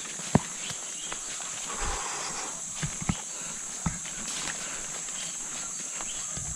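Footsteps through dry leaf litter on a rainforest trail, with a few sharp snaps of twigs and a rustle of leaves, over a steady high insect drone.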